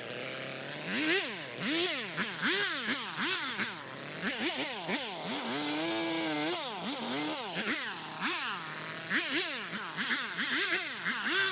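Stihl MS250 chainsaw revving up and dropping back again and again, about two to three times a second, with one brief steady hold partway through. The quick pitch swings fit cut-after-cut throttling sped up in a time lapse.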